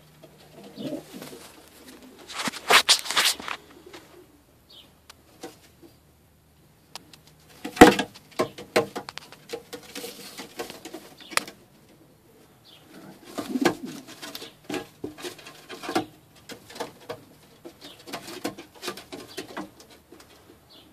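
Pouter pigeons cooing low, with bursts of wing flapping and scuffling against wood. A sharp knock just before eight seconds in is the loudest sound.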